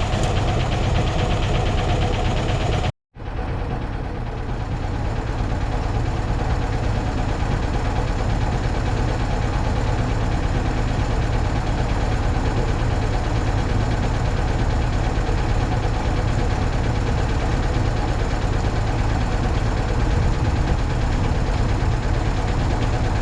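Fishing boat's inboard engine running steadily on board, a low, even drone, with a brief cut to silence about three seconds in.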